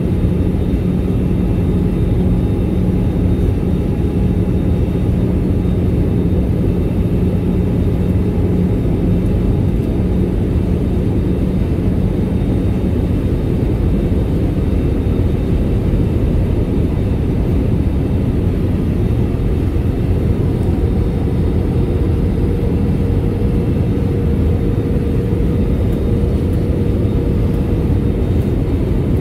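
Steady cabin roar of an Airbus A320 in flight: engine and airflow noise heard from a passenger seat. A low hum fades out about twelve seconds in, and a fainter, higher tone comes in later.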